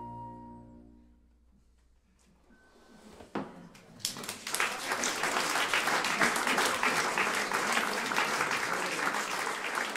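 The last held chord of a bandoneon, flute, piano and double bass ensemble dies away in the first second, followed by a brief hush. A few first claps come about three seconds in, and full audience applause breaks out about a second later and keeps going.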